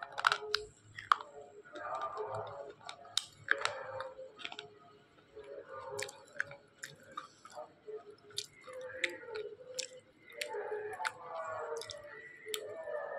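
Black slate pencil being bitten and chewed: repeated sharp crisp cracks as the brittle stick breaks between the teeth, over gritty chewing.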